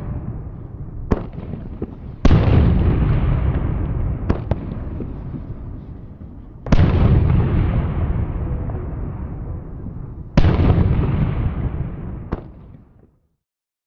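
A series of explosions: three heavy blasts about four seconds apart, each trailing off in a long fading rumble, with a few sharp cracks between them. The sound dies away near the end.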